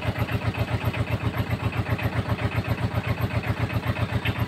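An engine idling steadily nearby with an even low throb, about five beats a second.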